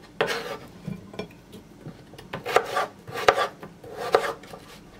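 Chef's knife dicing a peeled potato into small cubes on a wooden cutting board: a handful of separate, irregularly spaced knife strikes against the board.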